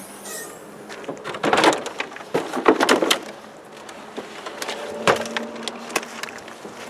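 Knocking and clattering as a large gas-powered RC car, an HPI Baja 5SC, is grabbed and lifted out of a hatchback's boot, its body and wheels bumping the boot. The clatter comes in bursts, about one and a half seconds in, around two and a half to three seconds in, and again near five and six seconds in.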